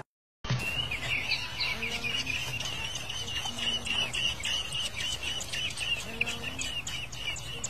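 Nestling songbirds begging in the nest, a continuous chorus of rapid, wavering high-pitched cheeping as the parent feeds them. It starts about half a second in.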